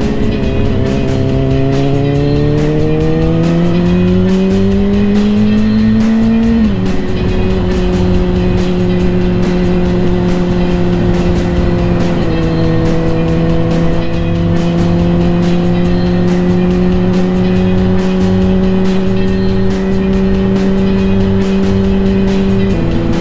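Honda CBR600RR's inline-four engine pulling under acceleration, its pitch rising for about seven seconds before it drops sharply at an upshift. It then holds a steady cruising pitch, with a slight dip partway through and another drop near the end. Background music plays along with it.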